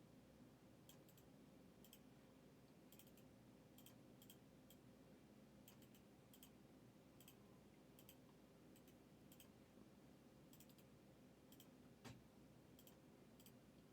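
Near silence, with faint, light clicks coming irregularly about once or twice a second and a small thump near the end.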